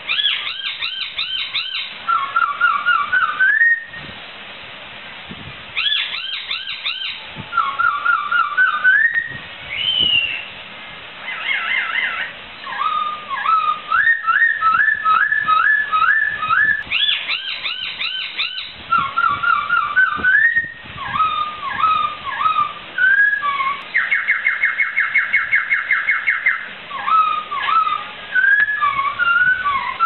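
A poksai (laughingthrush) singing loud, whistled phrases: runs of rising, stepped notes and slurred fluty notes, repeated with short pauses. About three-quarters of the way through comes a fast, even trill of roughly eight notes a second.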